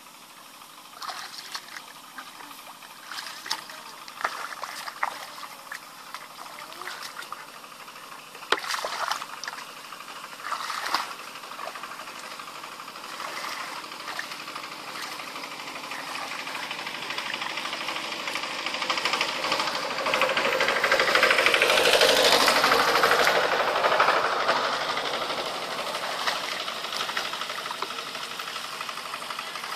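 Muddy water splashing and sloshing as people wade and bail with a basin in a shallow ditch. In the second half a small engine's drone swells, loudest a little past the middle, then eases off.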